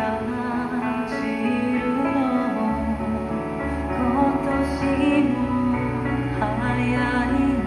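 Music: a gentle song with a sung melody over guitar and a bass line.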